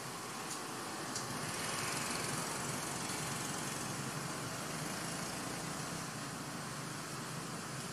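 Steady hissing background noise, with two faint clicks in the first second or so.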